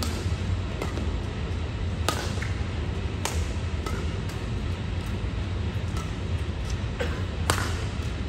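Badminton rally: rackets striking the shuttlecock, a sharp crack every second or two, the loudest near the end, over a steady low hum.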